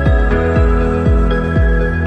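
Background music: a mellow electronic track with a kick drum about twice a second under held synth chords.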